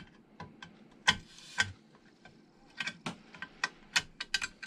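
Metal connector bars of a Kreg straight edge guide clicking and tapping as they are handled and fitted against the rails: irregular short clicks, the loudest about a second in.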